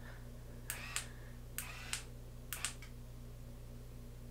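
Beachwaver B1 rotating curling iron's motor running faintly, a low steady hum with a slight pulsing, as the barrel turns and winds a section of hair. A few short, sharp clicks come in pairs in the first half.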